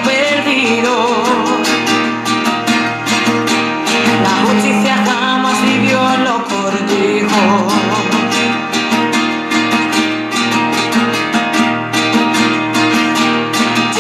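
A song with strummed acoustic guitar and a singing voice, the voice wavering and ornamented.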